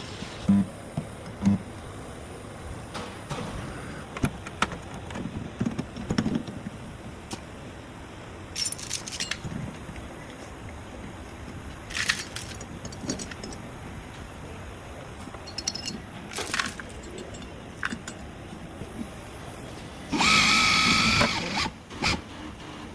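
Intermittent metallic clinks and scrapes from metal tools being handled and worked, with a brief high-pitched whine near the end.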